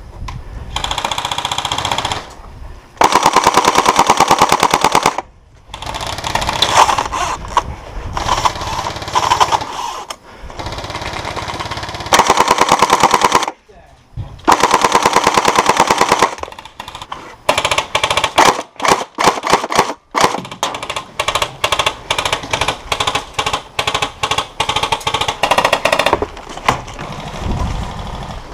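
Tokyo Marui AA-12 electric airsoft shotgun firing on full auto, a rapid clatter in long bursts of a second or two. Through the second half the firing breaks into many short bursts.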